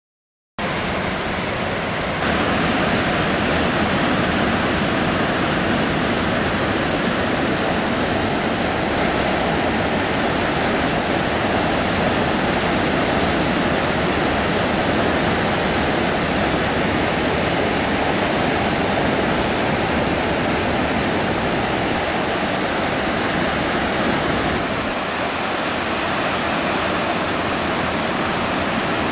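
Steady rushing of sea surf breaking on a rocky shore, starting abruptly about half a second in.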